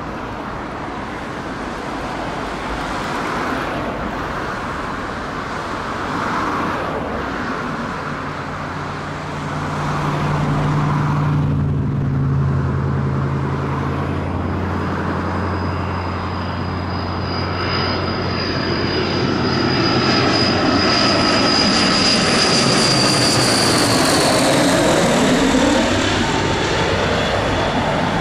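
Transall C-160D's twin turboprops on landing approach: a steady propeller drone under a high turbine whine, growing louder as the aircraft nears. Near the end it passes overhead and the whine drops in pitch.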